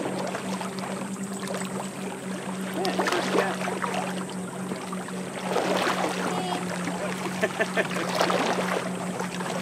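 Steady low hum of a motorboat out on the water. Over it come irregular rustles and clicks about three seconds in and again in the second half, as a small channel catfish is reeled in on a spinning rod and swung out of the water.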